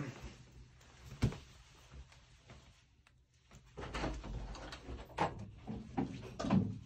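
Household knocks and rustling in a small tiled room: one sharp knock about a second in, then a run of clicks, knocks and rustles from about four seconds in.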